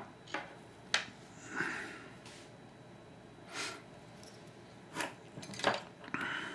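Light, scattered clicks and taps of small metal parts and tools being picked up and handled on a wooden workbench, about seven short sounds spread over several seconds, with a few softer breathy noises among them.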